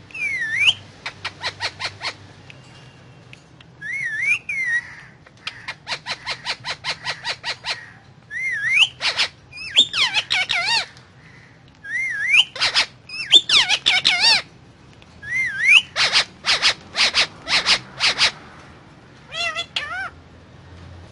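Indian ringneck parakeet calling: bouts of rapid, repeated sharp calls, each bout opening with a short up-and-down whistled note, with pauses of a second or so between bouts.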